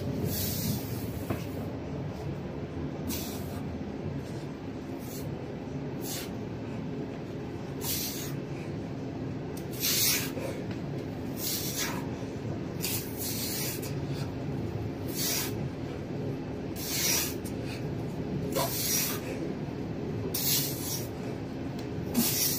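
Sharp breaths hissing out close to the microphone, one with each push-up, about every one and a half seconds, over a steady low hum in the bus cabin.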